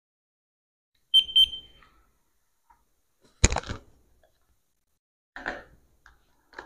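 A handheld infrared thermometer gives a short high double beep. About two seconds later there is a sharp knock, followed by two softer bumps near the end.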